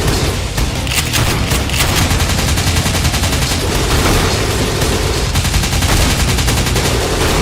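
Rapid, continuous automatic gunfire, many shots a second without a break.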